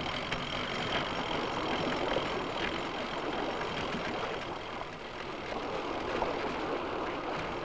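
An engine running steadily under a continuous noisy wash, with a faint high steady tone through the first half.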